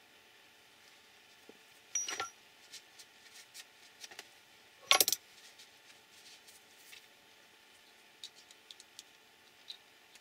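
Small metal and plastic RC car parts clicking and clinking as they are picked up and fitted together by hand: a short cluster of clinks about two seconds in, the loudest clatter about five seconds in, and a few light ticks near the end.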